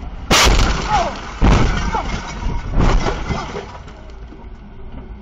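Car crash heard from inside the dashcam car: a sudden loud impact about a third of a second in, a second about a second and a half in, and a third near three seconds, as the car rear-ends the vehicle ahead and buckles its hood. The noise dies away after the third impact.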